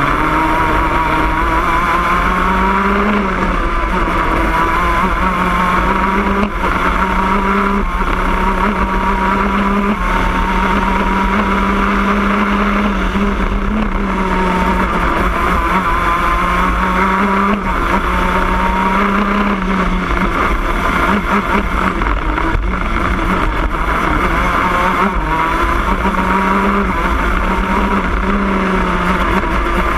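Shifter kart's 125cc two-stroke engine under full racing load. Its note climbs, drops and climbs again many times as the kart accelerates, shifts and slows through the corners.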